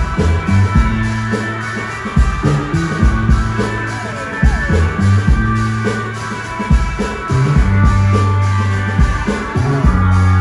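Live instrumental psychedelic rock band: an electric bass holds long low notes under a steady kick-and-drum beat, while an electric guitar plays a lead line with sliding notes.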